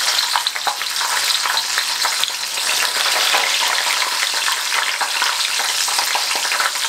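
Battered lobster tail shallow-frying in hot oil in a wok: a steady, loud sizzle with constant small crackling pops as it is turned with metal tongs.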